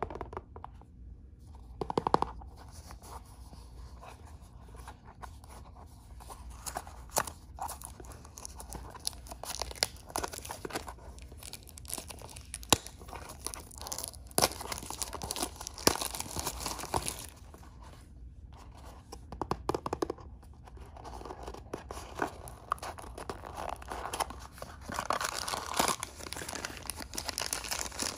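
Wrapper packaging of toy surprise packs crinkling and tearing as it is opened by hand: a run of crackles and sharp clicks, busiest near the end.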